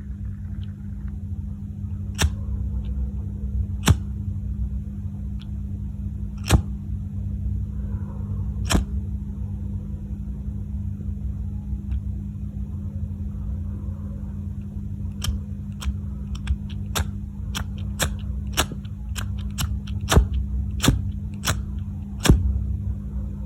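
Lighter being clicked again and again with sharp clicks: a few spaced seconds apart at first, then a quick run of about two a second near the end. A steady low hum runs underneath.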